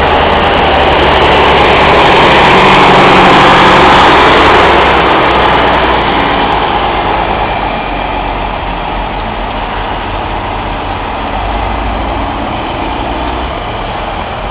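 Vintage farm tractor engines running as the tractors drive past. The sound is loudest about four seconds in, then slowly fades as they pull away.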